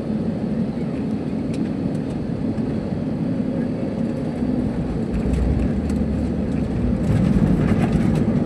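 Airliner cabin noise: a steady low rumble that grows louder about five seconds in and again near the end, with a few light rattles.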